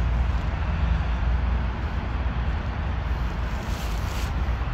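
Steady low rumble and hiss of outdoor background noise, with a brief louder hiss about four seconds in.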